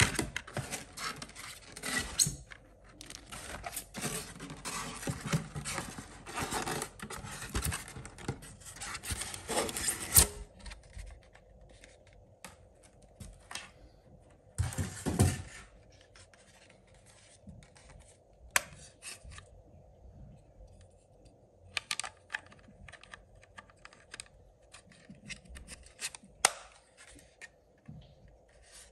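Scratching and rubbing of packaging being handled as a toy RC truck is lifted out of its styrofoam insert, dense for about ten seconds. After that come a short loud scrape about halfway and scattered small clicks and knocks of handling the truck and its remote.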